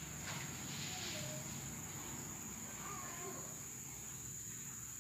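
Faint ambience: a steady high-pitched insect drone, with a couple of faint short animal calls about a second and three seconds in.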